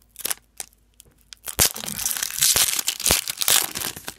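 Foil wrapper of an O-Pee-Chee Platinum hockey card pack being picked at with a few sharp crinkles. About a second and a half in, it is torn open with a long stretch of loud tearing and crinkling.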